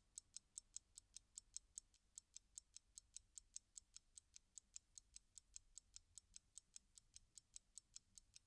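Faint, even ticking of a mechanical timepiece, about five crisp ticks a second.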